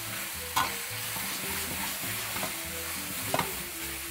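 Chicken pieces sizzling in hot oil in a wok while a metal spatula stirs them, with a sharp clank of the spatula on the pan about half a second in and another past three seconds.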